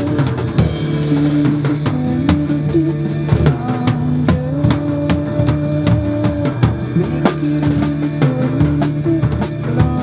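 Pearl drum kit with Sabian SBR cymbals played to a recorded rock song: frequent kick, snare and cymbal hits over the song's sustained music.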